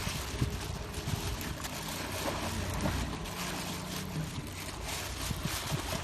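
Boat engine running low in a harbour, a steady rumble under broad outdoor noise, with a hum that comes up for about a second and a half around the middle.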